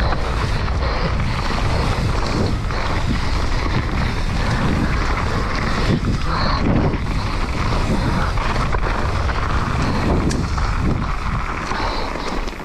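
Wind buffeting the microphone on a fast mountain-bike descent, with the tyres rolling over a dirt trail and a few short knocks from the bike on the rough ground.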